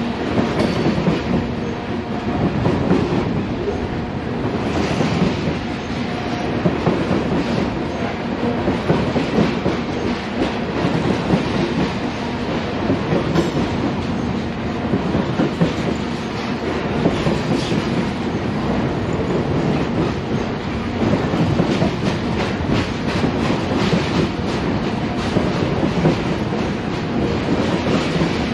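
BNSF freight train of covered hopper cars rolling steadily past, a continuous rumble of steel wheels on rail with a fast clicking over the rail joints.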